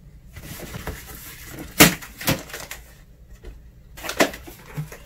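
A cardboard shipping box being pulled open by hand: scraping and rustling of the flaps, with a sharp snap about two seconds in and a few smaller knocks.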